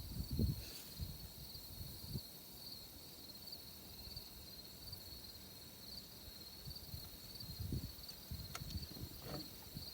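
Steady chorus of insects, a pulsing high buzz, with a few low knocks and bumps of handling at the start and again near the end.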